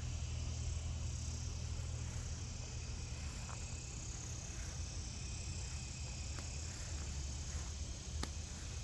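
Crickets chirring steadily in the evening over a constant low rumble, with a single sharp click near the end.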